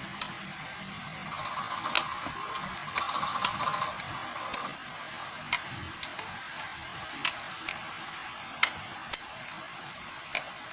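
Glossy slime being squeezed and poked by hand, making sharp clicking pops, about a dozen at irregular intervals, over a faint soft squishing.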